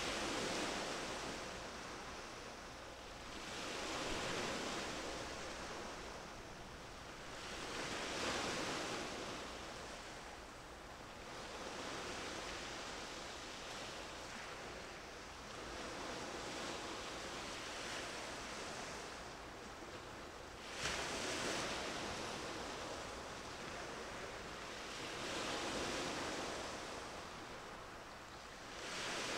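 Sea waves washing in and breaking, one swell of surf noise every four seconds or so, with a sharper break about 21 seconds in.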